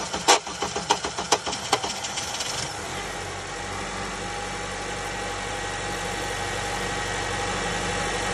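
2008 Honda CR-V with a bad starter cranking: loud, irregular clacking, several strikes a second, from the failing starter. The engine catches a little under three seconds in and then idles steadily.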